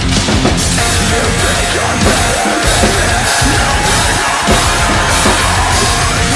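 Drum kit (Pearl drums, Sabian cymbals) played hard along with a metalcore song: steady cymbal hits and kick and snare over heavy distorted guitars.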